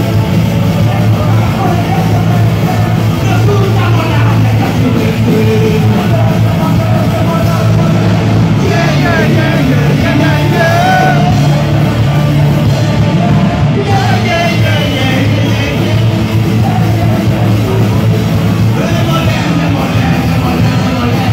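Live rock band playing loudly, with electric guitar and sung and yelled vocals over the band.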